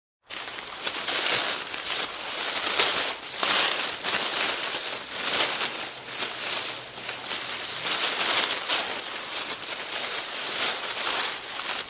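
A dense crackling noise that starts suddenly after silence and keeps on with uneven swells and many small clicks.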